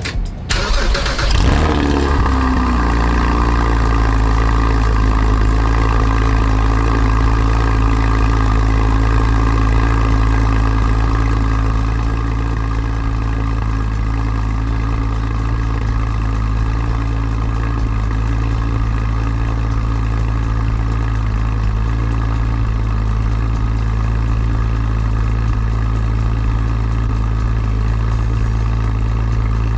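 Porsche GT4's 3.8-litre flat-six, fitted with a full Akrapovic exhaust from the headers back, heard close at the twin tailpipes. It fires up about a second and a half in, its revs flare and sink over a couple of seconds, and it settles into a steady warm-up idle that eases slightly lower about twelve seconds in.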